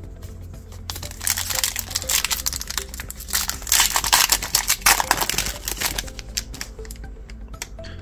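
A foil trading-card pack wrapper being torn open and crinkled: crackling starts about a second in, peaks in the middle and dies away about six seconds in, over background music.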